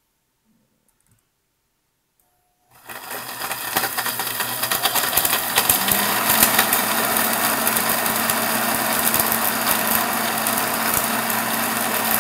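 Countertop blender switched on about three seconds in and running at high speed, grinding dry toasted seeds that rattle against the jar.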